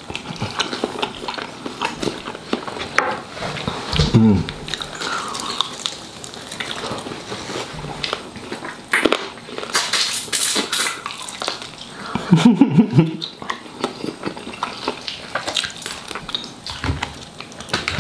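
Close-miked eating of chicken wings: wet chewing and lip-smacking with many sharp clicks as the meat is bitten off the bone. Twice there is a brief low hum from the eater, about four seconds in and again around twelve seconds.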